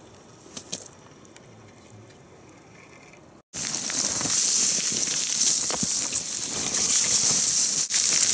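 Quiet open-air background with a few faint clicks, then after an abrupt cut about three and a half seconds in, a loud, steady rushing hiss.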